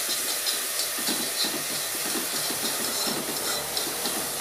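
Chopped onion and capsicum sizzling in hot oil in a metal pan, a steady hiss, while a spoon stirs them with soft, irregular scraping.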